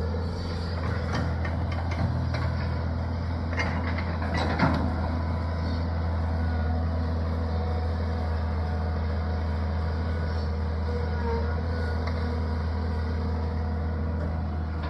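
Excavator's diesel engine running steadily, with a few short clanks a few seconds in.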